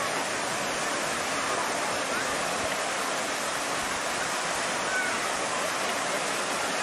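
Steady rush of water from a waterfall pouring down stone steps into a swimming pool.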